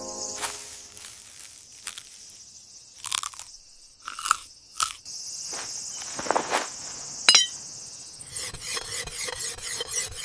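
Crickets chirping steadily. Over them come a handful of separate crisp crunches, and near the end a quick, even run of crunching.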